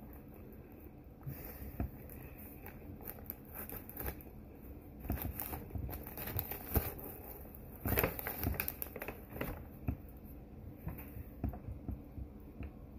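Paper sandwich wrapper crinkling and rustling in short, irregular spells as a sub is handled, loudest about eight seconds in.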